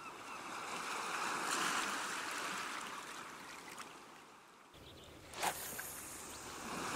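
Calm seashore: small waves washing onto the sand, swelling and then fading away before the next wash builds near the end. There is one short sharp click about five and a half seconds in.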